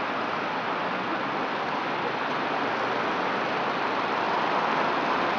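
A steady, even rushing noise with no distinct events in it, swelling slightly about four seconds in.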